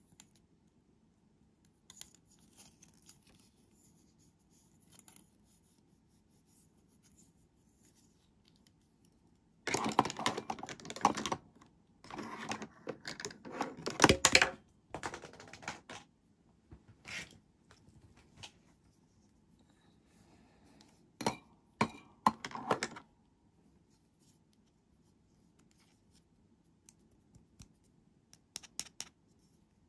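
Hard plastic toy doctor-kit pieces, including toy scissors, clicking, tapping and clattering against each other and the plastic carry case as they are handled and fitted into place. It is quiet for the first several seconds, then comes a dense run of clatter, followed by scattered single clicks and a short cluster.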